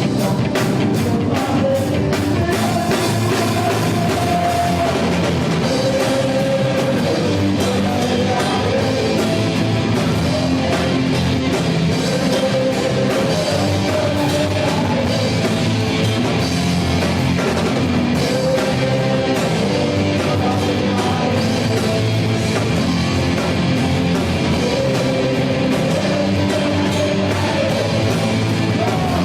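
Live gospel rock band playing loudly, with drum kit, electric guitar and a singer's voice.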